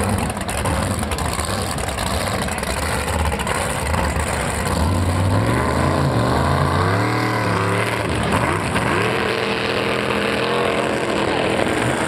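Two drag boats' engines running, revving up and down several times from about halfway through as the boats turn.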